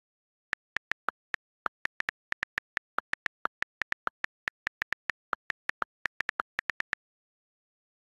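iPad on-screen keyboard key clicks as a sentence is typed: a quick, irregular run of sharp taps about five or six a second, a few of them a little lower in pitch. The clicks stop about a second before the end.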